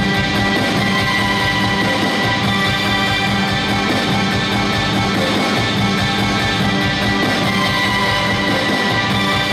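Loud rock-style dance music with guitar and a steady beat.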